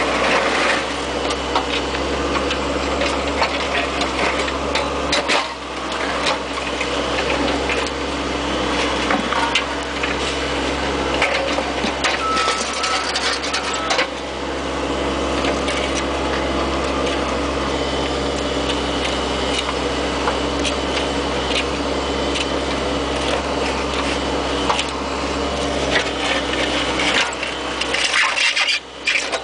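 Bobcat 430 ZHS mini excavator's diesel engine running steadily, with frequent short clicks, knocks and rattles over it. The sound drops off briefly near the end.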